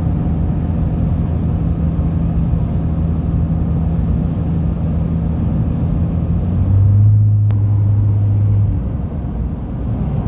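Road and engine noise inside a moving car, with a steady low hum. About seven seconds in the hum drops to a deeper, louder drone for a couple of seconds, then fades back.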